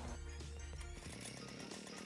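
Background music with sustained bass notes; the music changes about a second in.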